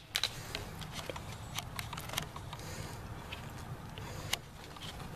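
Sabres clashing in a sparring bout: an irregular run of sharp clacks, the sharpest right at the start, over a steady low rumble.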